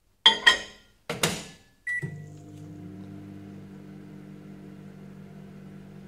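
Panasonic microwave oven: a couple of sharp clicks and a clunk as the door is shut, a short keypad beep about two seconds in, then the oven starting up and running with a steady hum.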